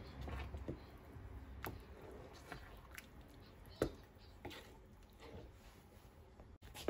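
Wooden spoon stirring thick baked-bean sauce in a pot: faint wet squishing with scattered light taps of the spoon against the pot, the loudest about four seconds in.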